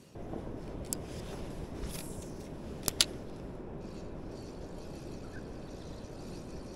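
Spinning reel being wound in, with a steady rough grinding from its worn line-roller bearing. There is a sharp click about a second in and a quick double click about three seconds in.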